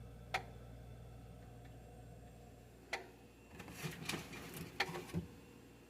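Refrigerator with a steady low hum and single sharp ticks a few seconds apart. About halfway through the hum stops and a run of clicks and rattles follows. The ticking is an unexplained noise from inside the freezer.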